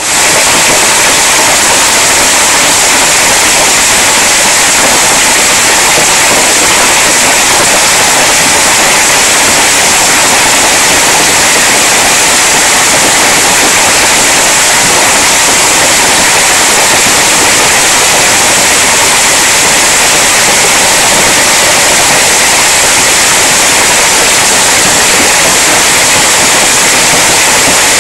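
Heavy hail falling, hailstones pelting a clear corrugated plastic roof and the ground in a loud, steady, dense hiss.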